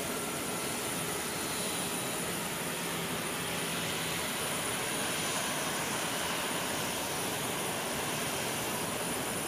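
Jet aircraft engines running: a steady rushing noise with a thin high whine over it.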